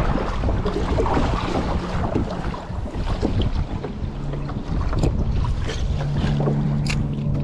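Wind buffeting the microphone with water slapping against a plastic kayak hull, a steady low rumble. A faint low hum comes in during the second half, and two sharp clicks sound near the end.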